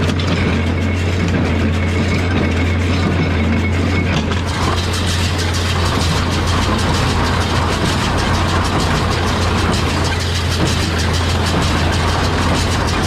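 Tractor engine running steadily with a John Deere small square baler working behind it; a denser mechanical rattle and hiss from the machinery gets louder about four and a half seconds in.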